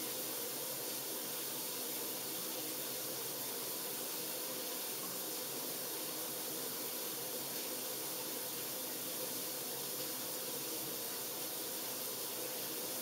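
Overhead rain shower running steadily: an even hiss of falling water.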